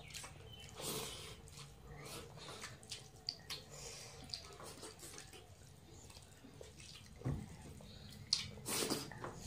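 Soft wet, smacking sounds of people eating rice and curry with their hands: fingers mixing and squelching food and mouths chewing, with scattered small clicks. A few louder clicks come near the end.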